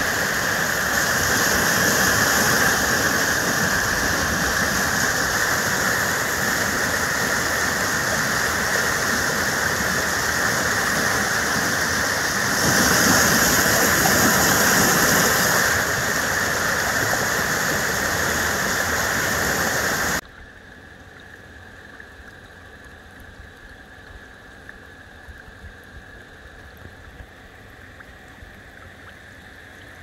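A fast, muddy mountain stream swollen with snowmelt rushes over rocks in a loud, steady rush of water. About twenty seconds in it cuts off suddenly to the much quieter trickle of a small, shallow brook.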